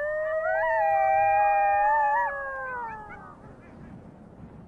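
Two coyotes howling together in long overlapping howls that rise at the start, hold, then slide down and die away about three seconds in.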